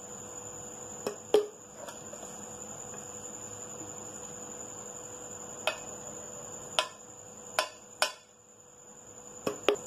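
A steel spoon clinking and tapping against an aluminium frying pan as ghee is spooned in and spread: about nine short, sharp taps scattered through, the loudest about a second and a half in, over a steady background hiss and a thin high whine.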